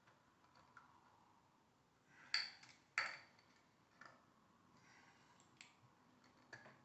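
Small metal clicks and light scraping of hand tools working inside the opened hub of a Bafang geared hub motor. Two sharper clicks come about two and three seconds in, with a few fainter ticks after.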